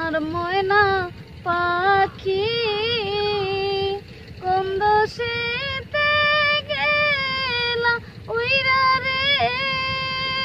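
A woman's high voice singing a song unaccompanied, in long held notes broken by short breaths.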